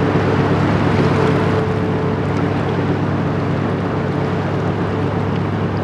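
Inland cargo ship's Caterpillar 3512 V12 diesel engine running steadily as the vessel passes, a low droning hum over a hiss of wind and water. The drone eases slightly about one and a half seconds in.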